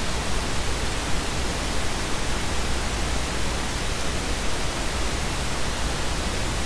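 Steady hiss with a low hum underneath, unchanging throughout, with no distinct sound events: the background noise of the recording.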